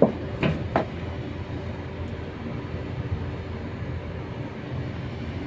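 Air-conditioning condensing unit running with its newly replaced compressor and condenser fan: a steady mechanical hum, working normally after the swap. Three short knocks come in the first second.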